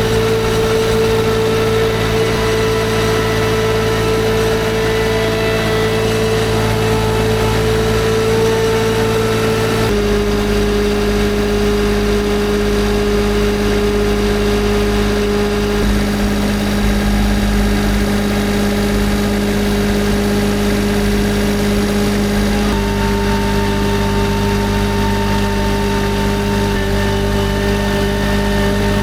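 Mini skid steer engine running steadily, with its speed stepping to a new pitch about a third of the way through and again later.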